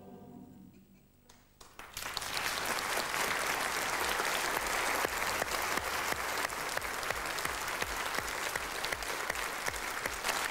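The last chord of a male voice choir dies away, and after about a second's pause an audience breaks into steady applause.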